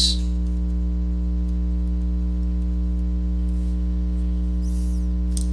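Steady electrical mains hum with a buzz of its overtones, unchanging throughout, with a few faint clicks and a brief soft hiss near the end.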